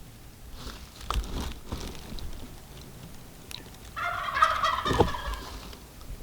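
Wild turkey tom gobbling: one loud, rattling gobble about four seconds in, after a few short knocks about a second in.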